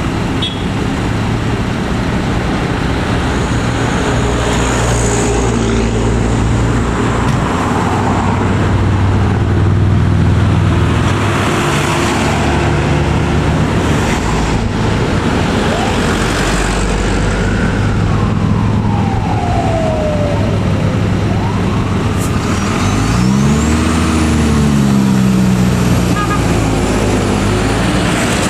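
A motor vehicle driving on a road: engine running with steady tones that step up and down in pitch, over road noise. Near the end a separate tone rises and falls.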